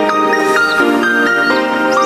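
Electronic background music: a synth tune whose sustained notes step from pitch to pitch several times a second.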